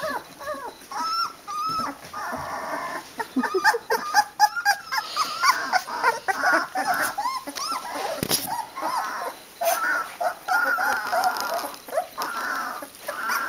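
A litter of very young Boerboel puppies whimpering and squeaking almost without pause, many short high cries rising and falling and overlapping one another.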